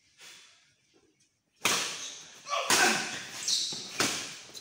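Badminton rackets hitting the shuttlecock in a rally: three sharp hits about a second apart, each ringing on in a large hall, with a short high squeal between the last two.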